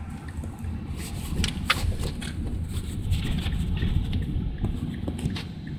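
Car driving, heard from inside the cabin: a steady low rumble of engine and tyres on the road, with a few brief clicks about a second and a half in and again near the end.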